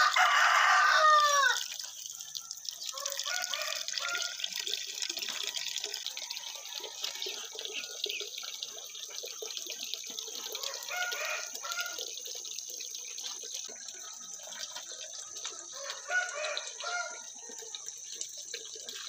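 A rooster crows loudly in the first second and a half, the call dropping in pitch at its end; a few fainter calls follow later. Under it, soft splashing and dripping of wet laundry being scrubbed and wrung by hand.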